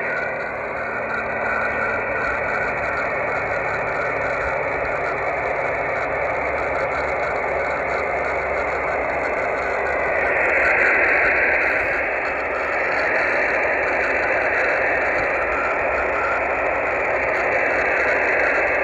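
Rushing receiver hiss from a transceiver's speaker, tuned to a 47 GHz rain-scatter path. Faint tones waver up and down in the hiss, and it swells briefly about ten seconds in.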